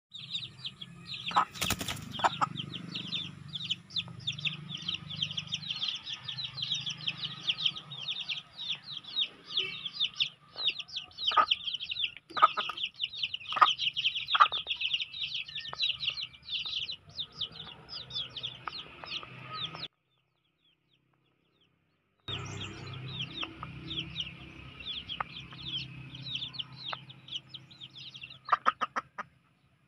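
Twenty-day-old chicks peeping continuously in rapid, overlapping high chirps, over a low murmur from the hen. A few sharp taps come near the start and around halfway. The sound cuts out completely for about two seconds about two-thirds of the way through.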